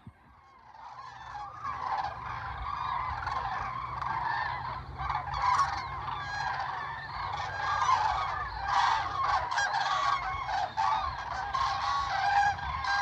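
A flock of common cranes calling, many overlapping calls at once. The calls start about a second in, with a low steady rumble underneath.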